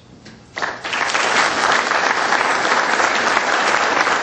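Audience applauding, breaking out about half a second in and then holding steady.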